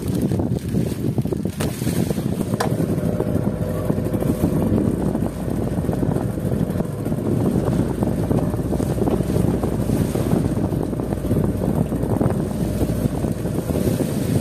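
Strong wind buffeting the microphone on a small fishing boat in a choppy sea: a rough, steady rumble. A faint steady hum joins about three seconds in.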